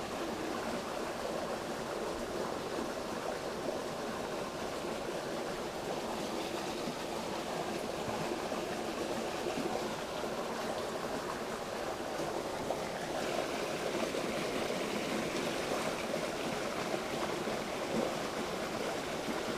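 Small creek running over rocks: a steady rush of water, a little hissier from about thirteen seconds in.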